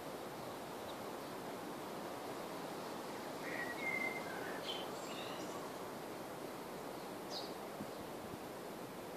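Steady outdoor background hiss, with a few short bird chirps about halfway through and a single chirp near the end.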